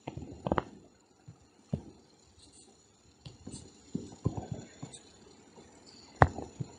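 Stylus writing on a tablet: scattered light taps and soft scratching, with a few sharper clicks about half a second in and again near the end.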